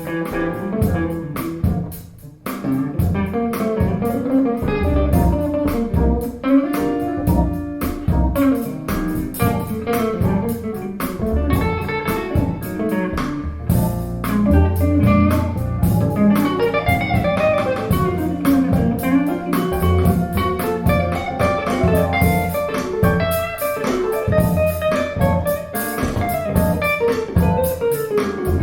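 Instrumental guitar music with a bass guitar line, played through a pair of Wharfedale Linton Heritage loudspeakers for a sound demo. The music drops away briefly about two seconds in, then carries on.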